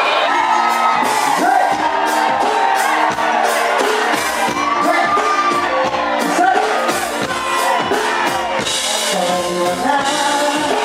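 Live pop band playing with a steady beat, a lead vocalist singing over it, and a large crowd shouting and cheering along.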